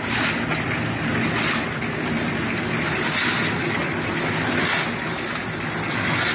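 Portable concrete mixer running with its engine humming steadily, while buckets of gravel are tipped into the turning drum about every one and a half seconds, each pour a rushing clatter of stones.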